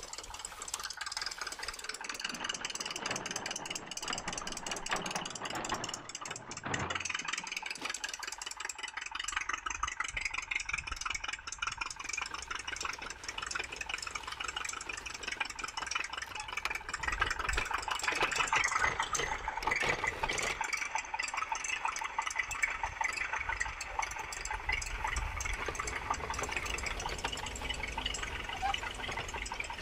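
Tractor engine sound running steadily, thin and high-pitched with little bass, growing a little louder about two-thirds of the way through.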